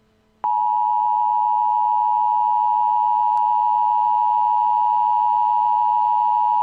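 Emergency Alert System attention signal: a loud, steady two-tone beep of 853 and 960 Hz that starts about half a second in and holds without change. It is the alert tone that announces a spoken emergency message.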